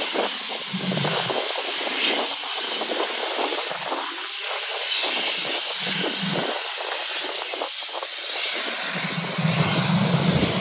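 Steady rushing roar of jet aircraft engines, with irregular low gusts of wind rumbling on the microphone that grow stronger near the end.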